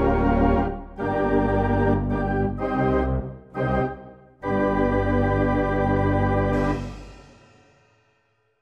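Organ music playing held chords, with a few short chords about three seconds in, then a long closing chord that fades away near the end.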